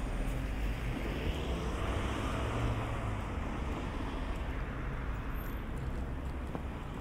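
A car passing by, its tyre and engine noise swelling to a peak about two seconds in and then slowly fading away.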